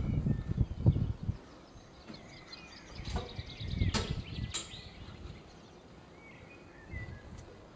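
Wind buffeting the microphone for the first second or so. After that, scattered bird chirps and calls over faint wind, with a few sharp clicks a little past the middle.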